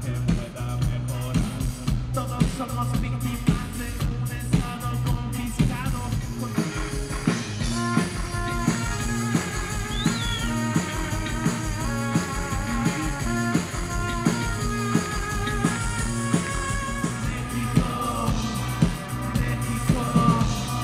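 Electronic cumbia dance music played live, with a steady drum beat and singing; a melody line comes in more strongly about eight seconds in.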